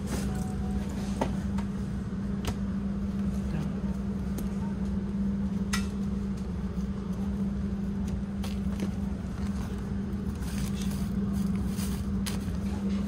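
Steady low hum and rumble inside a passenger train carriage. Scattered light clicks and rustles from a wallet and seat-back pocket being handled come over it, more of them near the end.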